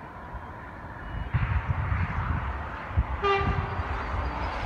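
A train horn gives one short, single-pitched toot about three seconds in, from a train not yet in view. Under it, low gusty rumbling of wind on the microphone and a steady rushing noise.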